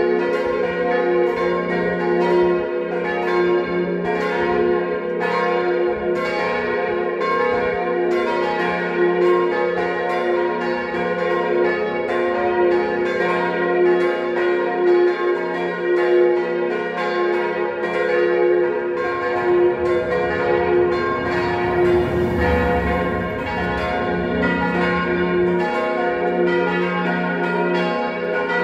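A peal of four church bells tuned to C, B-flat, A-flat and F, ringing together in a continuous tumble of overlapping strikes over their long hum.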